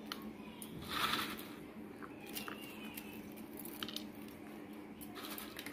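Crisp sev (fried gram-flour noodles) sprinkled by hand onto a papdi topped with chaat: a faint crunching rustle about a second in, then a few light ticks as pieces land.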